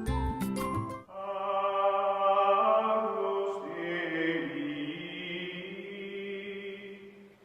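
Outro music: tinkling, plucked notes for about a second, then long held chanted tones that shift pitch a few seconds in and fade out near the end.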